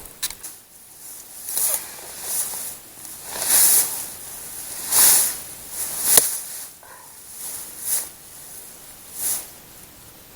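Firewood being handled and added to a fire: a string of short rustles, about one a second, with a sharp snap a little past the middle.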